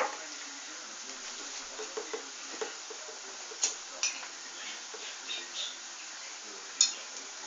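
A spoon clinking now and then against a plate or dish: a few short sharp clicks, the loudest about three and a half seconds in and near the end, over a low steady hiss.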